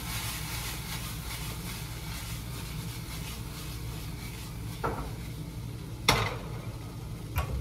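Food sizzling in a frying pan as it is shaken over a stove burner, with a sharp clack a little after six seconds as the pan is set back down on the burner and a couple of fainter knocks around it.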